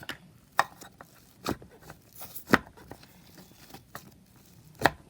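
Butter slime being squeezed and stretched by hand, giving about four sharp pops and clicks a second or so apart.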